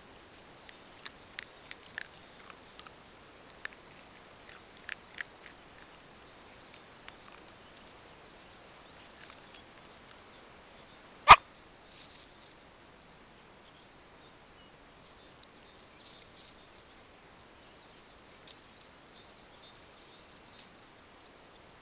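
Two small pinscher-type dogs, a miniature pinscher and a Manchester terrier, crunching scattered dry kibble and nosing through dry grass: a run of small crisp clicks and crunches in the first six seconds, then a few faint ones. About halfway through, one dog gives a single short, sharp yip, the loudest sound.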